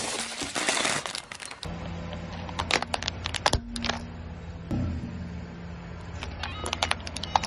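Objects crushed under a slowly rolling car tyre: first a dense crackling noise, then clusters of sharp plastic cracks and crunches. A steady low engine hum runs beneath.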